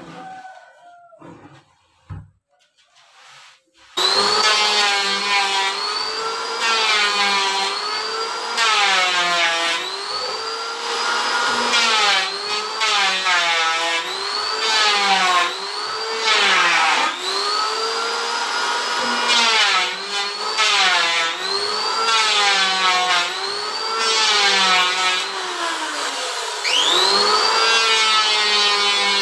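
Electric wood planer starting loud about four seconds in and worked in repeated passes along the wood, its pitch falling and rising again with each pass, about one pass every second and a half.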